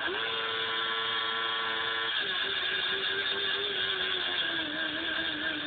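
Motorcycle engine held at high revs with a steady note; about two seconds in the pitch drops a little, then sinks slowly toward the end.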